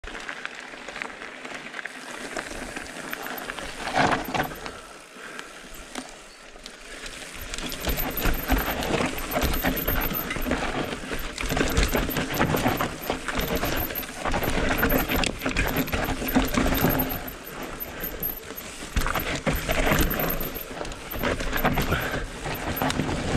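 Mountain bike riding down a dirt forest trail: tyres rolling over dirt and roots, with the bike's chain and parts rattling and clicking over the bumps. Quieter at first, then louder and busier from about a third of the way in.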